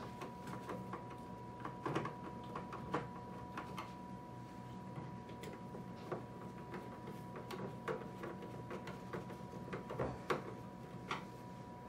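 Hand screwdriver turning screws into the plastic control unit of a Brinsea incubator, making irregular small clicks and taps, with a few sharper knocks about 2, 3 and 10 seconds in. A faint steady hum runs underneath.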